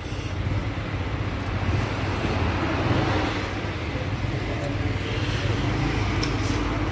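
SYM NH-X 125 motorcycle's single-cylinder four-stroke engine idling steadily.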